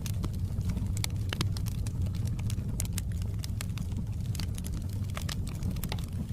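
Wood fire in a fireplace crackling and popping, with sharp irregular pops over a steady low rumble of the flames.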